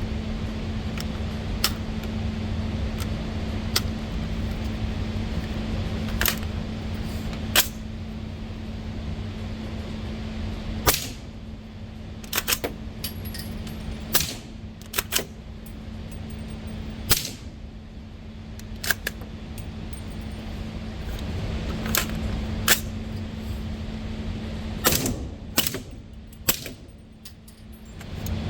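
Suppressed firearm with a SilencerCo Omega suppressor firing subsonic rounds: a string of sharp cracks, irregularly spaced, a second or more apart at first and coming in quicker pairs and runs in the second half, over a steady low hum.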